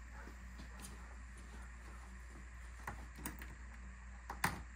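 A few faint short clicks of screws and plastic trim fasteners being handled and fitted into a car's front bumper, over a steady low hum.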